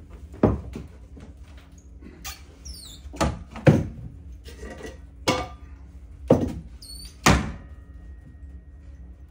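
Six sharp knocks at uneven intervals, each ringing briefly, over a steady low hum.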